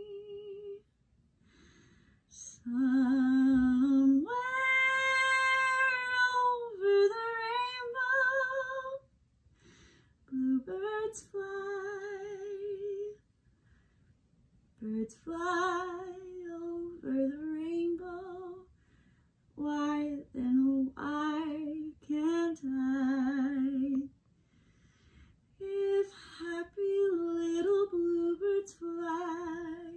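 A woman singing unaccompanied, in phrases of long held notes with a wide vibrato, broken by short pauses; the longest held note comes about four seconds in.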